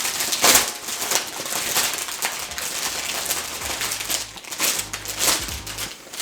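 Crinkling plastic parts bag holding model-kit runners, handled and opened in several rustling bursts.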